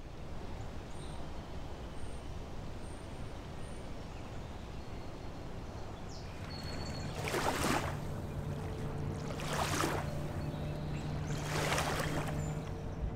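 Riverside outdoor ambience: a steady wash of background noise, joined about halfway by a low steady hum, with three loud splashing rushes of water about two seconds apart near the end.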